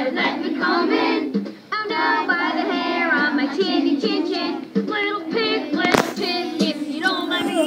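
A children's song sung by a group of young children.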